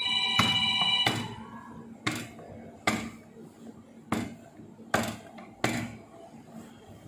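A rolling pin knocks sharply against the plate about six times, roughly once a second, as samosa dough is rolled out and turned. A steady high tone sounds for about the first second.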